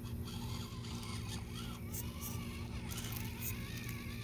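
Small electric motors and gear drivetrains of two FMS FCX24 RC rock crawlers whining steadily as the trucks creep over rocks at low throttle.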